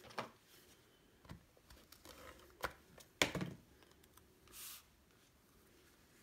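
Faint handling of paper and craft supplies while a stamped cardstock strip is glued onto a card: a few scattered light clicks and taps, one a little heavier about three seconds in, and a short rustle of paper about four and a half seconds in.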